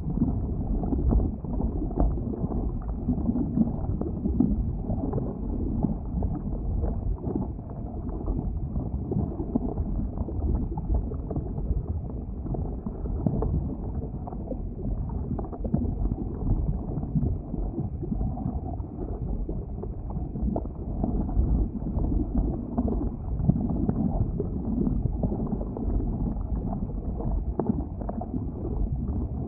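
Lava churning in an erupting volcanic vent: a steady deep rumble with a constant dense crackle of small pops.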